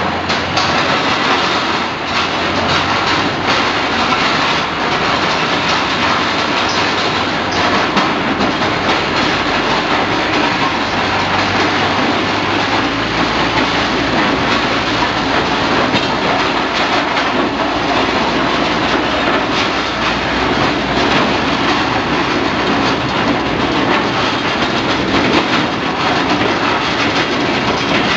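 A tow tractor pulling a train of loaded cargo carts off a ferry across its steel ramp: a continuous loud rattling clatter of cart wheels and frames, with a low engine rumble joining about halfway through.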